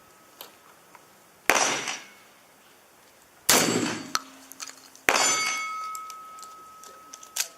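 Steel shooting targets clanging as shotgun shot strikes them, three hits about two seconds apart. Each strike rings on briefly, and the last rings longest. A few small clicks come near the end.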